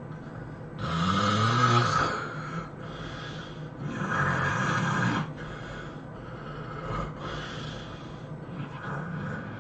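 A sleeping person snoring loudly, one snore about every three seconds. Two long, loud snores come first, then two fainter ones.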